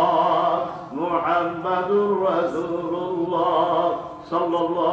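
A man chanting a Bengali waz sermon in a melodic, drawn-out sung voice with long held, gliding notes. He breaks off briefly about a second in and again near the end.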